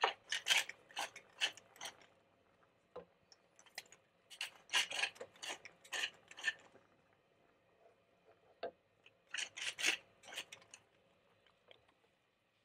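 Wooden pepper mill grinding black pepper: three bouts of quick rasping twists with short pauses between.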